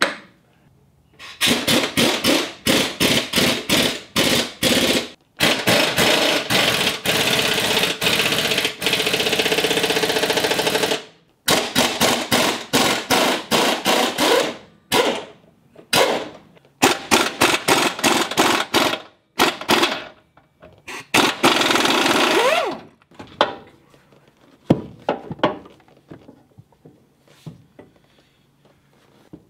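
Impact wrench hammering on the control arm bolts in a series of bursts, with two longer runs, the last winding down with a falling whine. A few lighter clicks and knocks of tools follow near the end.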